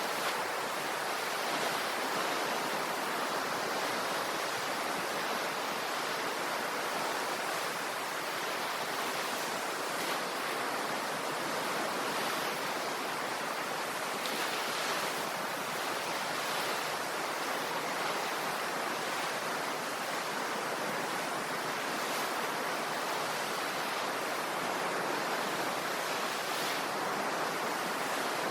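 Ocean surf washing on the shore, a steady, even wash of wave noise.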